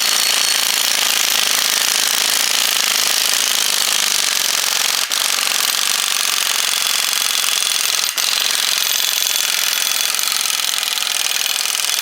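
Impact wrench hammering on a Dana 45 axle's pinion nut at a light setting, running it down before final torquing for pinion preload; it runs with two brief let-offs, about five and eight seconds in.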